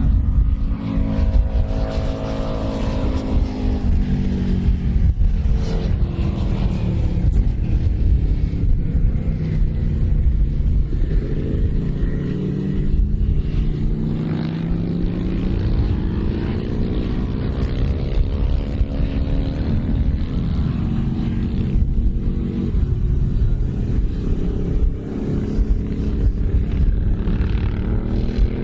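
Racing motorcycle engine, a Britten V1000's V-twin, running continuously with its revs repeatedly rising and falling over a heavy low rumble.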